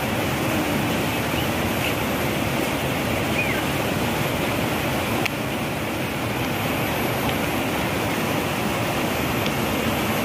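Rain-swollen, muddy river rushing over rocks in rapids: a steady, even rush of white water.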